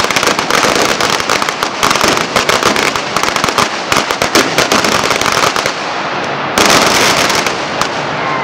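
A string of Chinese firecrackers going off in a rapid, dense run of sharp cracks and bangs. It thins out about six seconds in, then a last louder flurry crackles for about a second before it dies away.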